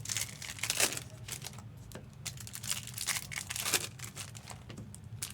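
Foil trading-card pack wrappers crinkling and tearing as packs are opened and handled, a run of crackles at uneven spacing.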